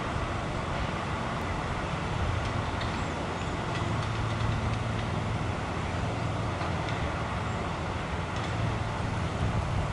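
Trailer-mounted leaf vacuum's engine and suction fan running steadily: a low hum under a rushing noise.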